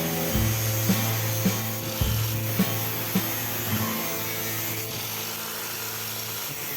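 Background music with a steady beat and a held bass line; the beat drops out about two-thirds of the way through while the bass and a steady hiss carry on.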